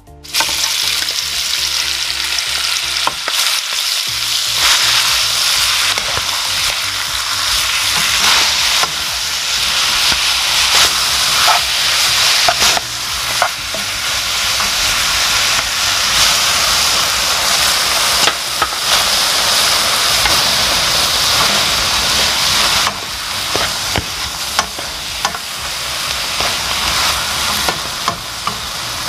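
Aged kimchi sizzling in hot oil as it is stir-fried in a pan, with a utensil clicking against the pan now and then.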